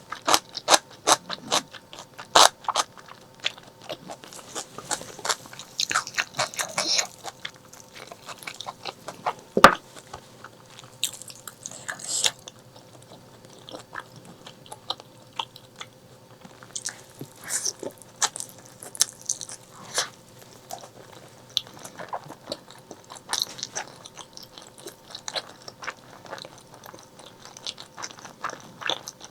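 Close-miked chewing and biting of braised pork leg, with many short, sharp wet mouth clicks. The clicks come thick and fast in the first few seconds, there is one loud snap about ten seconds in, and after that they come in looser clusters.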